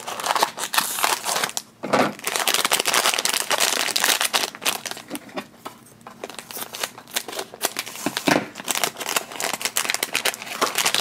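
A Tokidoki Unicorno blind-box package being opened by hand: the cardboard box handled, then the silver foil blind bag crinkling and rustling in a dense run of crackles, with a few brief lulls.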